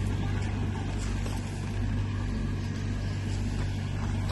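A steady low hum of a running motor or engine, even in level throughout.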